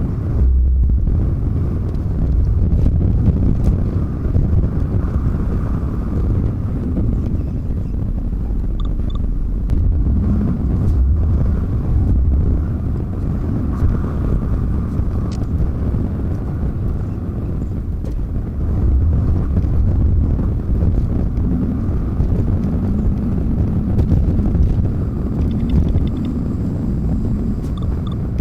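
Semi truck running down the road: a steady low engine and road rumble.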